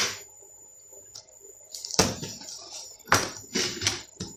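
Handling of a laptop on a work surface: a sharp knock about two seconds in, then a few lighter knocks and clicks of hard plastic.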